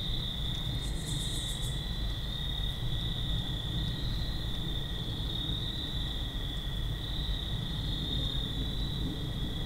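Steady chorus of night insects, a continuous high trill, with a brief higher pulsing buzz about a second in over a low background hiss.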